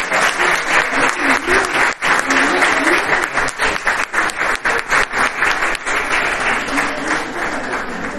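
Audience applauding: a steady round of many hands clapping, with faint voices underneath, easing a little near the end.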